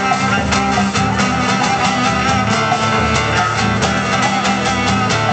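Live band playing an instrumental passage with no singing: guitar strumming over cello and drum kit, steady and unbroken.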